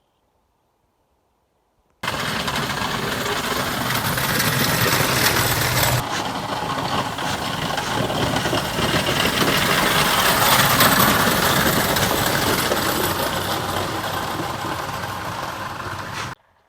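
A loud engine running with a rough, rattling noise, starting suddenly about two seconds in and cutting off abruptly near the end.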